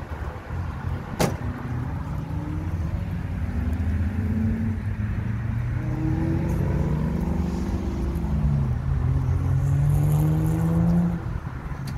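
A car engine accelerating, its pitch climbing and dipping several times, then rising steadily for about two seconds before dropping away suddenly near the end. A sharp click about a second in.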